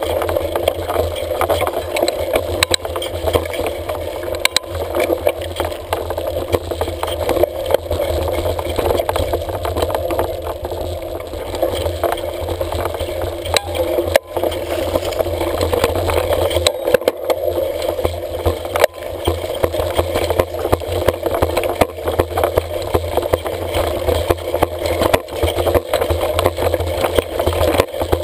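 Mountain bike jolting and rattling over a rough dirt trail, picked up through a GoPro taped to the handlebar: a steady loud noise with frequent small knocks.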